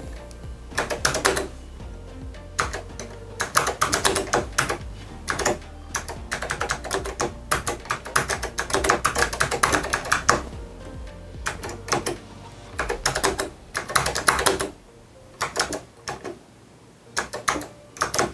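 Typing on an Apple IIc keyboard: irregular bursts of keystrokes with short pauses between them, over soft background music.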